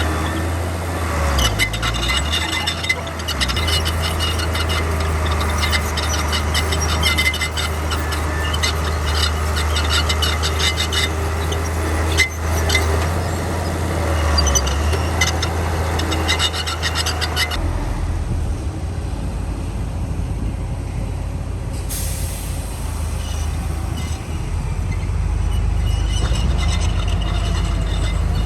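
Heavy diesel machinery working: a bulldozer's engine runs steadily under rapid metallic clatter, which stops about two-thirds of the way through. A few seconds later a short hiss of air sounds, like a dump truck's air brake.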